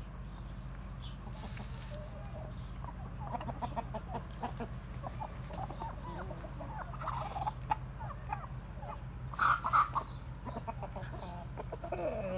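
A small flock of chickens, hens with a barred Plymouth Rock rooster, clucking in quick short runs. One louder outburst comes about three-quarters of the way through, and a falling, drawn-out call starts near the end.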